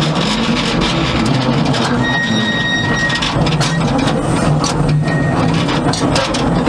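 Small replica 0-4-0 steam locomotive running slowly along the track: a steady mechanical clatter of its motion and wheels, with steam hissing. A brief high-pitched tone sounds about two seconds in and lasts about a second.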